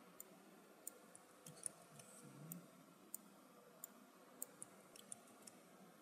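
Faint clicks of a computer mouse and keyboard: about a dozen short, sharp ticks at irregular intervals.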